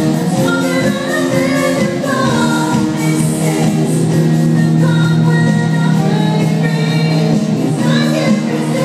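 Music with several voices singing over sustained low instrumental notes, a band playing through a sound check.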